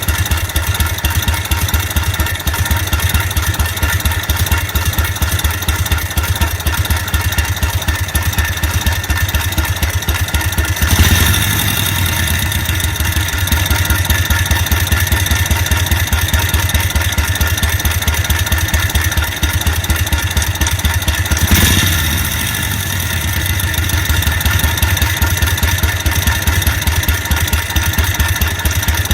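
Side-valve (flathead) engine running steadily with an abnormal noise. The engine's compression has fallen to 2 and its oil return is poor. It swells briefly louder twice, about a third and about two-thirds of the way through.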